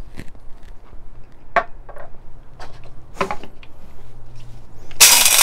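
Plastic clicks and knocks as the clear lid is fitted onto a small electric blade coffee grinder, then about five seconds in the grinder switches on and its blades smash 13 g of whole coffee beans with a loud rattling whir.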